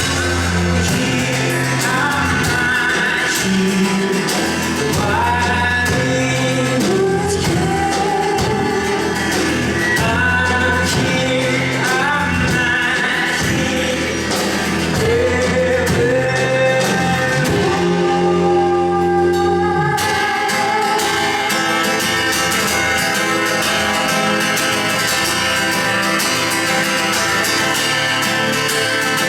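Rock band playing live in a large room, a singer's voice over guitars, bass and drums; about twenty seconds in the singing stops and the band plays on.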